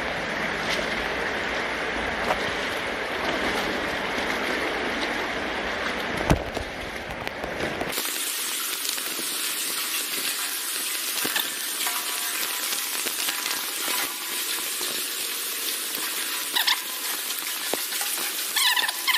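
Water rushing steadily through a brick culvert, heard as an even hiss. About eight seconds in the sound changes abruptly: the low part drops out and a thinner hiss with faint clicks remains.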